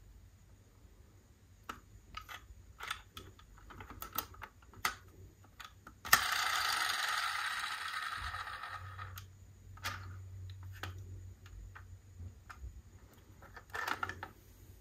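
Diecast metal model cars being handled: scattered small clicks and rattles. About six seconds in, a sharp click is followed by a rasping whir that fades over about three seconds.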